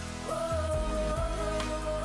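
Background pop music with singing: a long held sung note over a steady accompaniment.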